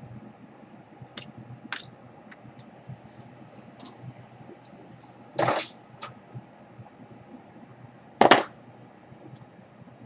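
Light clicks and taps of small hand tools, with two short, louder scrapes about five and a half and eight seconds in, as heat shrink is stripped off the rear wire connections of a laptop DC power jack.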